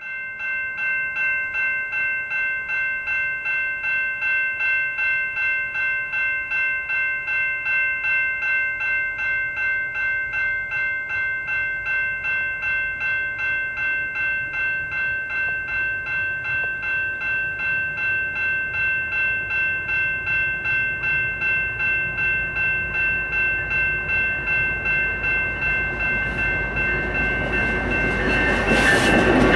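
Railroad level-crossing bell ringing in steady, rapid, even strokes as a freight train approaches; the train's locomotive noise grows much louder over the last few seconds as the lead engine reaches the crossing.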